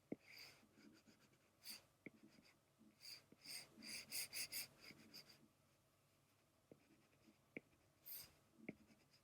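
Faint pencil strokes on sketchbook paper: a few scattered short strokes, then a quick run of them about three to five seconds in.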